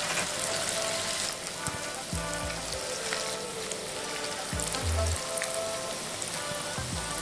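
Corn-and-spinach fritter batter frying in hot oil: a steady sizzle and crackle as the fritters bubble in the pan. Background music with a bass line plays along.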